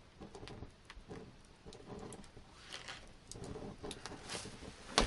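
Soft rustling and small irregular clicks of hands working gut sinew through the holes of a button on a hide pouch, with one sharper click near the end.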